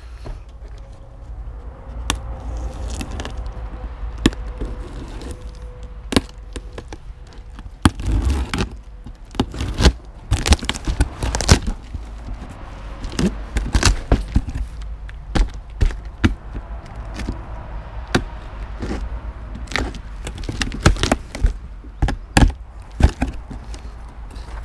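Cardboard parcel being opened by hand: packing tape peeled off and the box's cardboard torn and flexed, making a long run of sharp cracks and tearing sounds that come thicker after the first few seconds.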